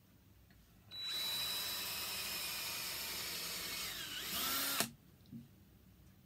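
Cordless drill boring a pilot hole into a wooden board: it starts about a second in, runs steadily for nearly four seconds with a brief dip in pitch near the end, then stops abruptly. A single small click follows.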